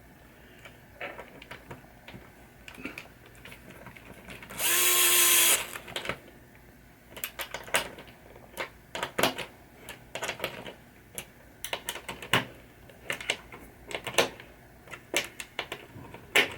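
A power drill/driver whirs once for about a second, a little under five seconds in. Scattered sharp clicks and taps of tools and small parts being handled run before and after it.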